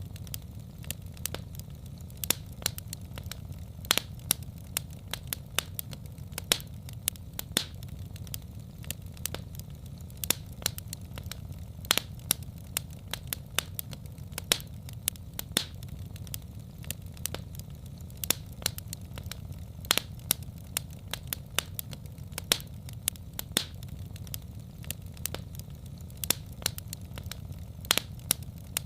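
Wood fire in a fireplace crackling: irregular sharp pops and snaps several times a second over a steady low rumble.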